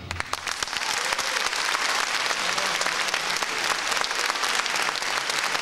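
Concert audience applauding right after an orchestral piece ends: many hands clapping, building up within the first half-second and then holding steady.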